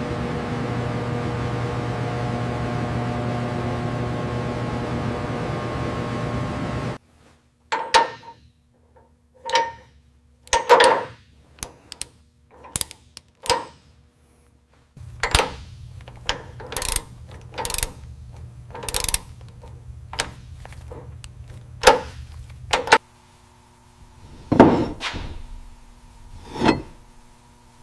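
Workshop tool sounds. A steady hiss with a low hum stops abruptly about seven seconds in, and is followed by a run of separate sharp tool clicks and knocks, the later ones over a low steady hum.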